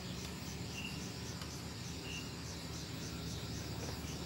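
Quiet background with a steady low hum and hiss, a faint, evenly repeating high chirping, and two brief high peeps.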